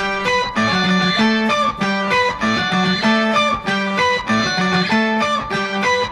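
Background music: a picked guitar melody with a steady bass line.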